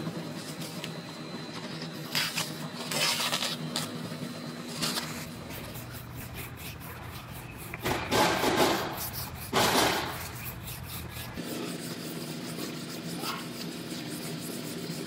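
Sandpaper on a hand sanding block rasping over a primed car quarter panel in a few strokes, loudest near the middle, over a steady background hum.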